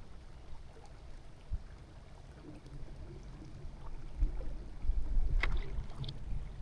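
Low outdoor rumble, louder in the second half, with one sharp click about five and a half seconds in.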